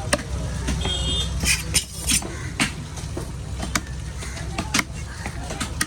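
A heavy fish-cutting knife striking through fish onto a wooden chopping block, in irregular sharp knocks about once or twice a second, over a steady low hum of the market.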